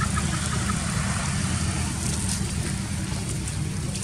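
Steady low rumble of wind buffeting an outdoor microphone, over a faint open-air hiss, with a few faint high chirps near the start.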